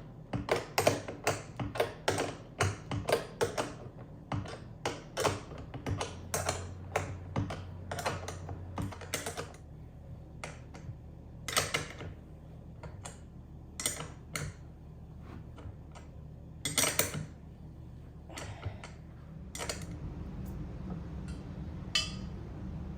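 A hand wrench clicking and clinking against bolts as they are tightened down during cart assembly. The clicks come quickly for the first several seconds, then sparser and irregular.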